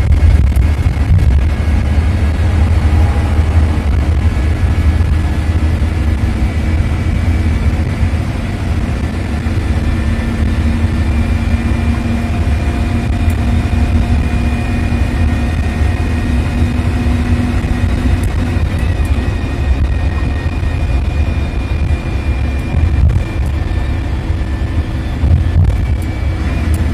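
Bus engine and road noise heard from inside the driver's cabin while cruising, a steady low rumble with a faint high whine over it.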